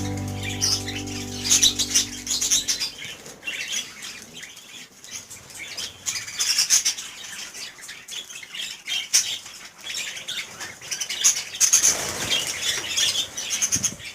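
Albino birds chirping and squawking in quick, repeated bursts, with wings flapping.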